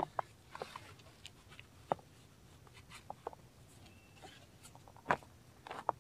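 Handling noise from a Deliberate Life Designs Pursuit sandal being fitted on a bare foot: webbing straps rustling as they are pulled through, with scattered sharp taps and clicks, the loudest right at the start and others about two and five seconds in.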